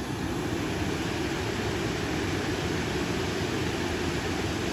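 Steady rush of river water pouring over a concrete causeway, a deep, even noise with no breaks.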